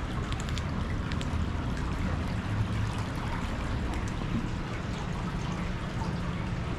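Water trickling and running through a concrete storm drain culvert, a steady wash of noise over a low rumble, with a few faint clicks and knocks.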